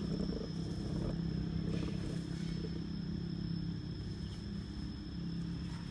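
Vehicle engine humming steadily, slowly fading over a few seconds, with a thin steady high tone above it.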